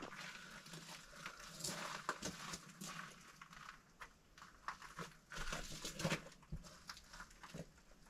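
Faint scattered taps, scrapes and rustling as a long wooden board is handled and maneuvered, with a couple of louder knocks about six seconds in.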